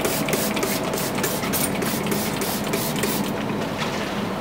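Hand trigger spray bottle squirting a shellac and denatured-alcohol mix in quick repeated pumps, over a steady mechanical hum. The pumps stop about three seconds in, and the hum runs on.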